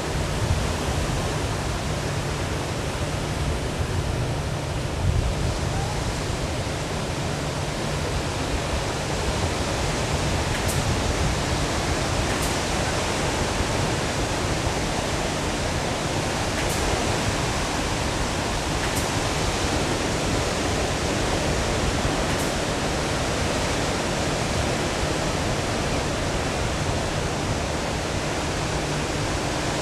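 Steady rushing noise of wind on the microphone and ocean surf, with a few faint high ticks.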